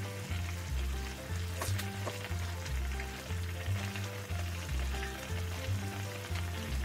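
A shallow pan of saucy ribs with bean sprouts sizzling steadily on a portable gas burner, under background music with a repeating bass line.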